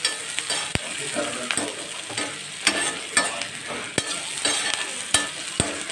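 Chopped onion and tomato sizzling in oil in a pan while being stirred, the stirring utensil knocking against the pan several times.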